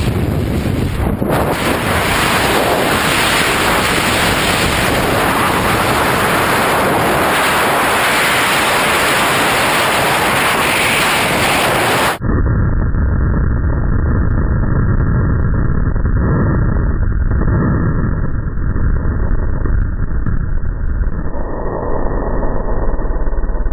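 Loud, steady wind noise buffeting a body-worn camera's microphone during a tandem skydive, from the open plane door into freefall. About twelve seconds in, it cuts suddenly to a duller, muffled wind noise.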